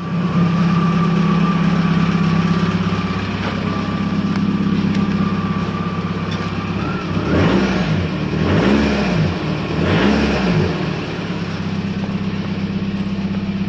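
Volkswagen Jetta TDI diesel engine idling cold with a steady high turbo whistle, then revved three times in quick succession past the middle before settling back to idle.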